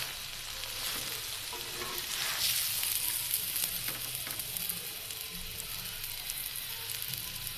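Stuffed aloo gobi paratha frying in oil on a hot tawa: a steady sizzle with fine crackling, a little louder about two to three seconds in.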